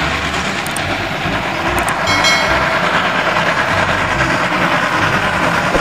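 Steam locomotive under load hauling a train of freight cars: a steady, dense running sound of its exhaust and rolling wheels.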